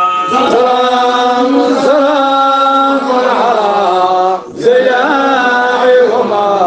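Male chanting of an Arabic Sufi devotional qasida, sung in long drawn-out notes that waver in pitch, with a short break for breath about four and a half seconds in.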